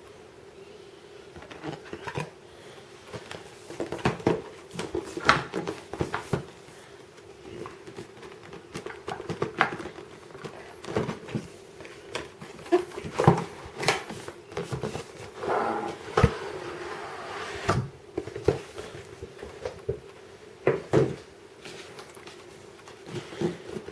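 Cardboard power-supply box being handled and opened: irregular knocks, taps and scrapes, with a longer scraping slide in the middle, over a steady low hum.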